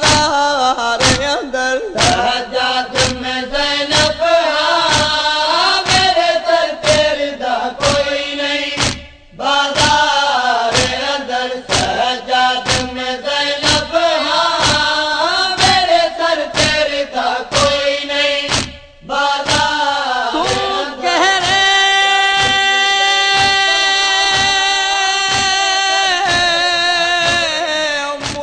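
Nauha, a Shia lament, chanted by a male reciter over a steady chest-beating (matam) beat of about two strokes a second. About 21 seconds in, the beat stops and the voices hold one long note.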